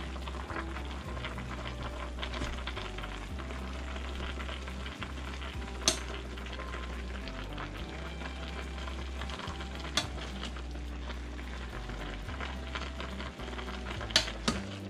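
Metal ladle stirring and scooping in a stainless steel pot of hot chicken soup over a steady bubbling hiss. The ladle clinks sharply on the pot about six seconds in, again about ten seconds in, and twice near the end.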